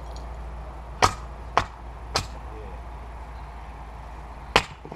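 A Cyclone 2.5 kg splitting maul striking firewood rounds. There is a sharp hard strike about a second in, two lighter wooden knocks over the next second, and another hard strike near the end.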